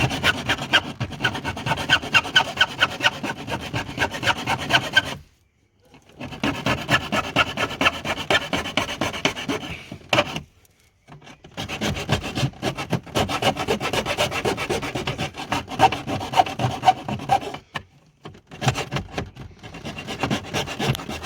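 A file rasping back and forth at the edge of a freshly drilled hole in a car's plastic dash panel, enlarging it to fit a switch. It goes in four spells of quick scraping strokes with three short pauses between them.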